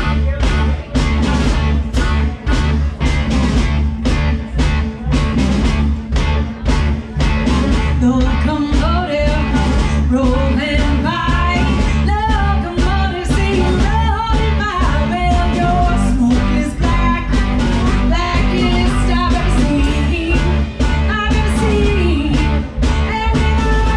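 Live blues-rock band playing: a drum kit keeps a steady beat under electric guitar and bass, and a bending lead melody line comes in about eight seconds in.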